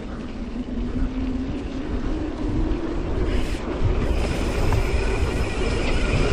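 Mountain bike riding fast down a dirt trail: wind buffeting the microphone and tyres rumbling over the ground, getting louder. A faint buzz rises slowly in pitch as the bike picks up speed.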